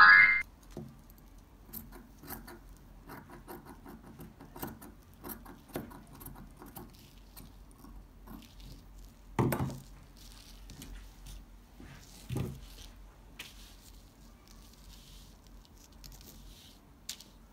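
Fabric and lace being handled on a plastic-covered table: quiet rustling and small clicks, with two louder knocks about nine and twelve seconds in, and scissors cutting the lace near the end.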